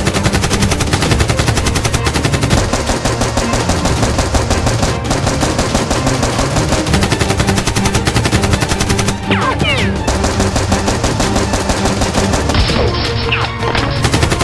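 Rapid, continuous automatic-gunfire sound effect dubbed over a toy blaster being fired, over background music.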